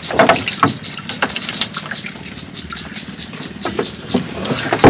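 Water splashing and dripping, with scattered knocks and clicks, as a fish trap is handled and emptied of its catch. The loudest knock comes just after the start.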